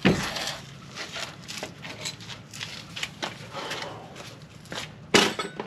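Hand tools and metal suspension parts being handled: irregular clicks, clinks and knocks, with a sharper knock at the start and another about five seconds in.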